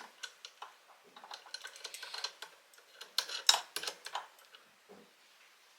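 Small clicks and metal taps of a diamante rivet die being screwed into the top of a hand rivet press, with one sharper knock about three and a half seconds in.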